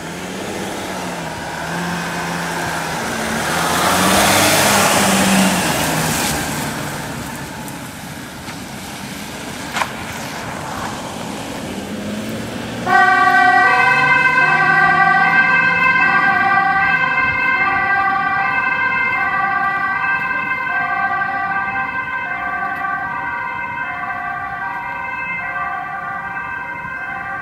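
Ambulance van's engine accelerating past, swelling and then fading, with a short click about ten seconds in. About halfway through, its two-tone siren cuts in suddenly, alternating between a high and a low note and slowly fading as it drives away on an urgent call.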